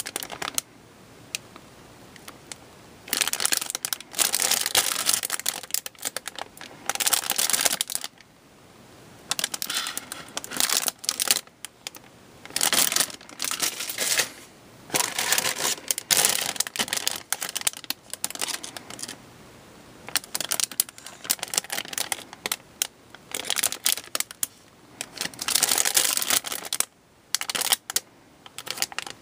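Clear plastic bags around plastic model-kit sprues crinkling and crackling in irregular bursts as they are handled, with short pauses between handlings.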